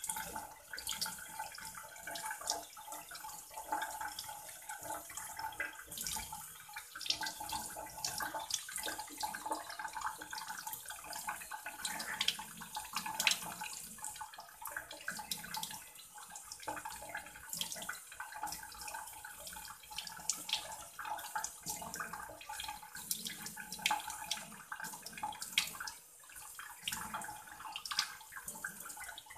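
Kitchen tap running in a thin stream into a stainless steel sink while a small fish is rinsed and cleaned by hand under it, with irregular splashes.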